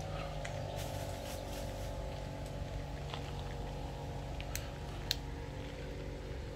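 Steady low engine hum with several held tones, drifting slightly lower early on, and a few faint scattered clicks, one sharper about five seconds in.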